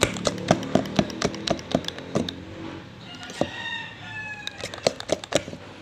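Egg whites being beaten by hand in a bowl toward meringue: the whisk strikes the bowl in quick clicking strokes, about four a second. The beating pauses about three seconds in while a rooster crows once, a drawn-out call falling in pitch, and resumes near the end.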